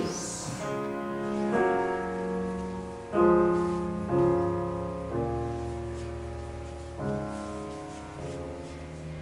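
Slow piano music: chords struck about once a second, seven times, each left to ring and fade.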